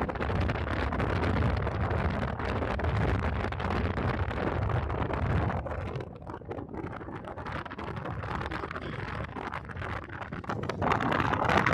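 Road noise of a vehicle driving along a street, with wind rushing over the microphone. It quietens for a few seconds about halfway through, then grows louder again near the end.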